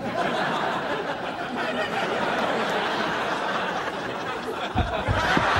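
Studio audience laughing: a dense, steady crowd laugh that starts abruptly and holds throughout.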